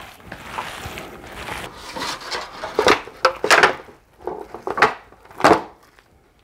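Gloved hands squishing and kneading ground pork sausage mix in a plastic bowl, then several loud scrapes and knocks as the bowl is tipped over against a disposable aluminium foil pan to turn the meat out.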